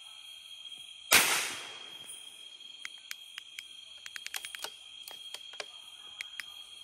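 A single gunshot about a second in, loud and sharp with a short ringing tail, over a steady high-pitched insect chorus. A scatter of faint, sharp clicks follows.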